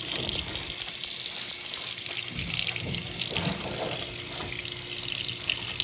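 Water running steadily from a faucet into a sink, the stream pouring over a block of cornstarch packing foam as it dissolves.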